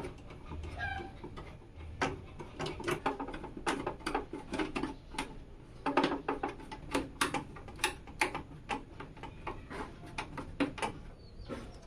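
Irregular hard clicks and taps, a few a second, with a few heavier knocks partway through, from computer parts being handled and fitted.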